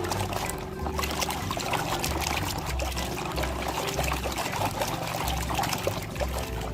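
Water splashing and trickling as muddy toy vehicles are washed by hand in a tub of water.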